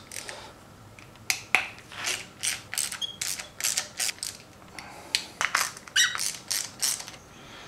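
Hand ratchet clicking in short, irregular runs while the 10 mm bolts holding the valve cover of a Subaru EJ25 engine are loosened.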